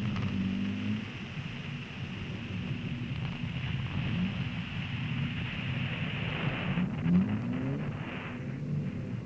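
Car engine running and climbing in revs in short pulls during slides, over a steady hiss of studless winter tyres sliding on snow-covered ice; the hiss breaks off about two-thirds of the way through and returns briefly.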